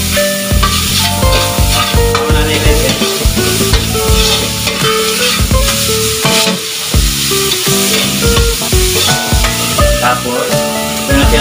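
Metal ladle scraping and knocking against a wok as bell peppers are stir-fried, with a steady sizzle of frying oil. Background music with held notes plays under it.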